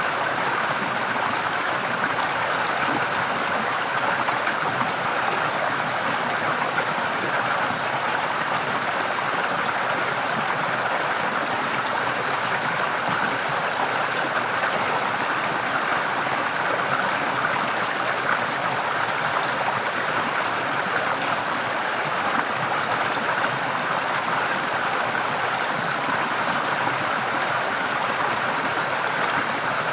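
A forest stream flowing and splashing in a steady, unbroken rush.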